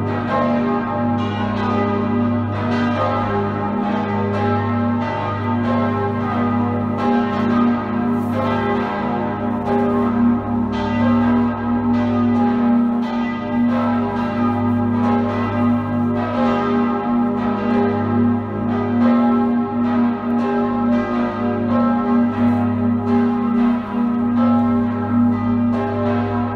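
Full peal of six swinging bronze church bells, tuned Gis°, H°, dis', fis', gis' and e'' and cast between 1781 and 1972. They ring together, strikes overlapping several a second in no set order, over the steady deep hum of the largest bell.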